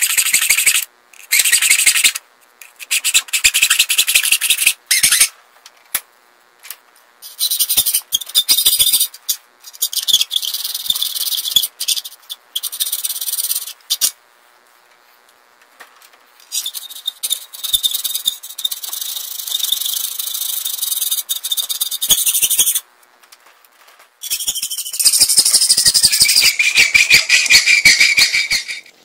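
Hacksaw cutting through a 1/8-inch aluminium plate, trimming it to length: fast back-and-forth saw strokes in about five runs of a few seconds each, with short pauses between.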